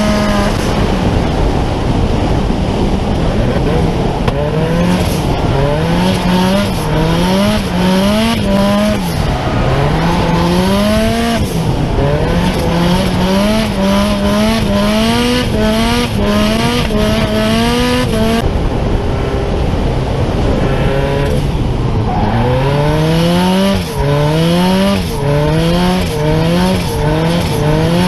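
A drift car's engine revving hard in repeated rising sweeps, each climbing for about a second and then dropping, with tires squealing. About two thirds of the way through the engine settles briefly to a lower, steadier note, then the rising sweeps start again.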